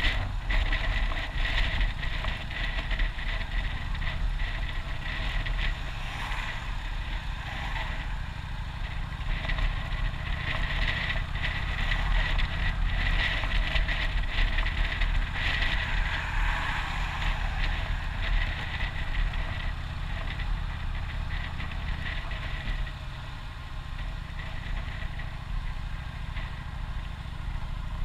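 Motorcycle engine running steadily while riding along a road, with wind noise over the microphone.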